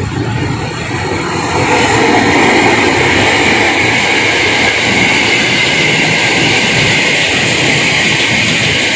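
Ex-Tokyo Metro 6000 series electric commuter train passing close by, its wheels running on the rails. It grows louder about two seconds in as the cars come level, then holds a steady rumbling, hissing run.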